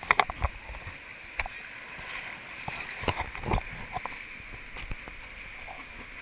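Whitewater rapids rushing steadily around an inflatable raft, with irregular sharp knocks and splashes, the loudest just after the start and about three and a half seconds in.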